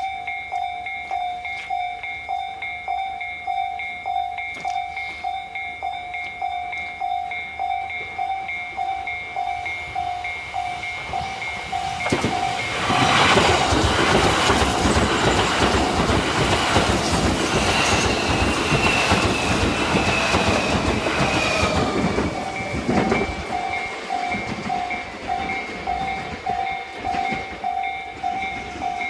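Japanese level-crossing warning bell ringing in steady pulses, about two a second. About twelve seconds in, an electric commuter train runs over the crossing for some ten seconds with wheel noise and a clatter of wheels over rail joints, drowning out the bell, and a falling whine near the end. The bell then rings on, the crossing still closed.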